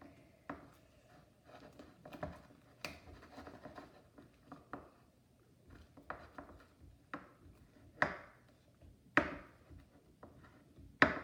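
Slime being stirred in a bowl: a mixing utensil scraping and knocking irregularly against the bowl, with three sharper knocks in the last few seconds.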